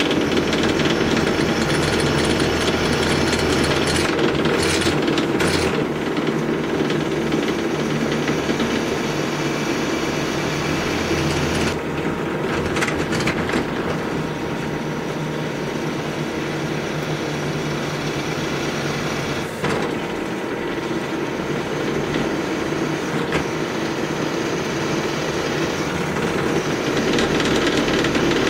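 Bench drill press running steadily, its twist bit cutting through a steel engine-mount plate.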